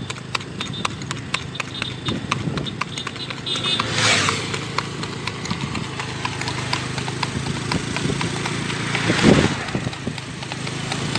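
A horse's hooves clip-clopping on an asphalt road in a quick, steady run of hoofbeats. Two louder swells of rushing noise come about four and nine seconds in.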